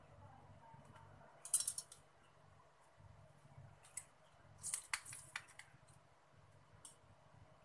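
A stainless steel spoon clinking and scraping against a steel bowl of cooked rice while lemon juice is spooned over it. Short bursts of light metal clicks come about a second and a half in, again around four to five seconds, and once near the end, over a faint low hum.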